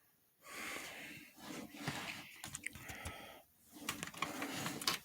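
A person's faint breathing and whispered muttering close to the microphone, in four short stretches broken by silence, with a few light clicks.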